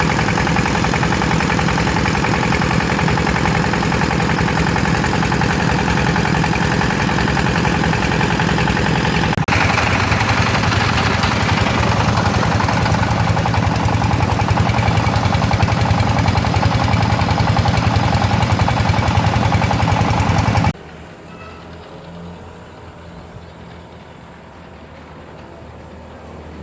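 Water-pump machine running steadily with a continuous mechanical drone and fast pulsing beat. The sound jumps louder at a cut about nine seconds in, then stops abruptly about 21 seconds in, leaving a much quieter background.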